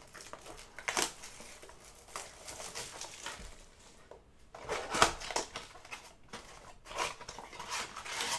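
Trading-card pack wrappers and packaging crinkling and rustling as they are handled, with a few sharp taps, the loudest about five seconds in.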